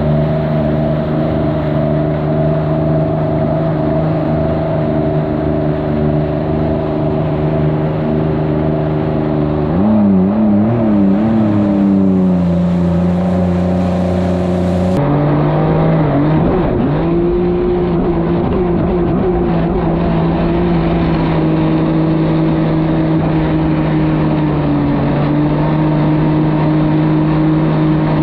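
2021 Yamaha Superjet four-stroke jet ski engine running hard through a Riva straight-pipe exhaust. The note holds steady, the revs waver up and down about ten seconds in, and there is a sudden change at about fifteen seconds. After that the revs climb and settle into a steady run again.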